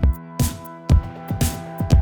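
Electronic background music with a steady beat: a kick drum about twice a second, hi-hats and sustained synth notes.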